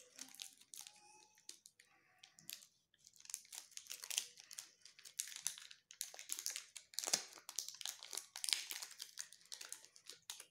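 Cadbury Temptations chocolate bar being unwrapped by hand: its cardboard sleeve torn open and the foil inside crinkled and peeled back, a quick run of crackles and tearing that gets busier after the first couple of seconds.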